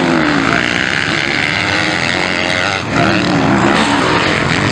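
Motocross bike engines revving hard through the gears, pitch rising and falling as they race around the dirt track, with a brief dip a little past halfway before the engine sound picks up again.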